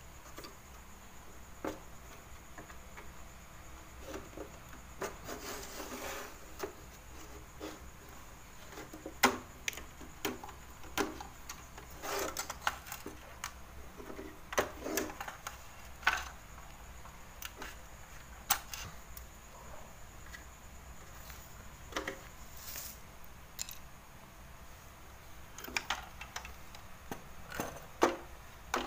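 Irregular clicks, knocks and rubbing of hands and tools working on a television's plastic casing and chassis, over a faint steady high tone.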